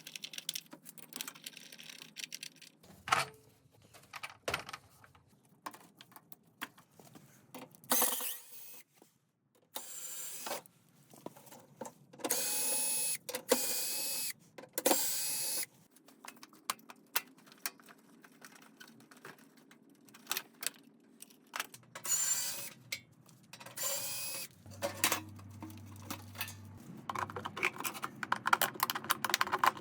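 Hand-tool work: scattered clicks and knocks of tools against metal and plastic parts, broken by several short runs of a small electric motor lasting about a second each, most of them in the middle of the stretch.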